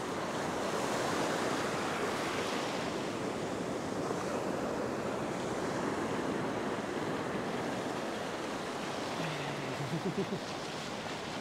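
Ocean surf breaking and washing up a sandy beach, a steady rushing wash.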